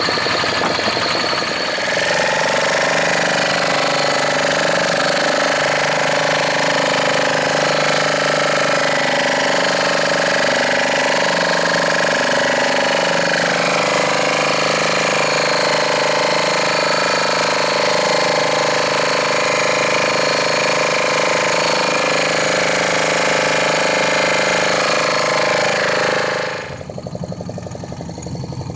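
A fishing boat's engine running at a steady speed, a loud, even drone with a pulsing knock. Near the end it drops and turns quieter and duller.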